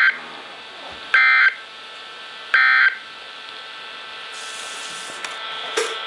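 NOAA Weather Radio receiver sounding the Emergency Alert System end-of-message code: short, buzzy bursts of digital data tones about 1.4 seconds apart, three in all, signalling that the alert broadcast is over. After them comes a steady radio hiss with a few clicks near the end.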